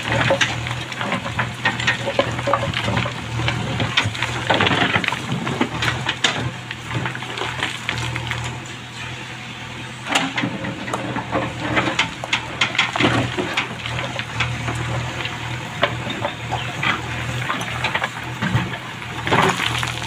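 JCB 3DX backhoe loader's diesel engine running steadily while its backhoe bucket digs through waterlogged mud and stones, with sloshing and many sharp knocks and scrapes of rock against the bucket.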